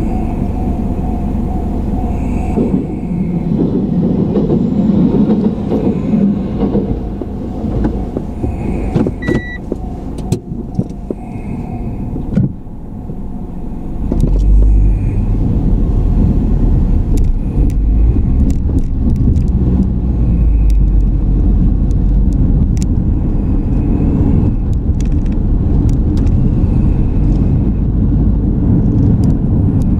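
A car driving, heard from inside: engine and road rumble with tyre noise, growing louder and deeper about halfway through, with a few light clicks along the way.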